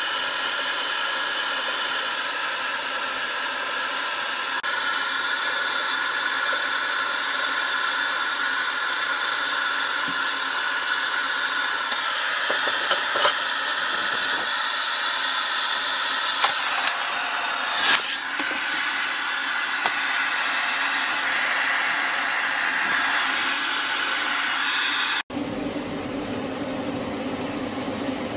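Pet hair dryer blowing steadily while a Samoyed's thick coat is dried, with a few brief clicks in the middle. After a sudden cut near the end the dryer sounds lower and duller.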